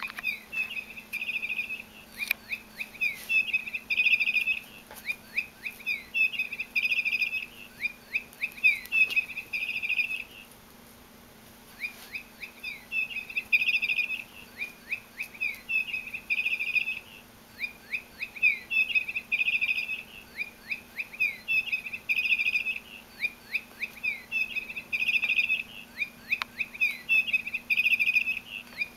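Cheap electronic chirping toy parrot giving the same quick run of bird-like chirps over and over. There is a brief pause about ten seconds in.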